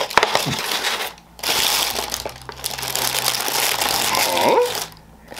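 Paper deli wrap crinkling and crumpling as a croffle is unwrapped from it by hand, in two stretches with a short pause about a second in.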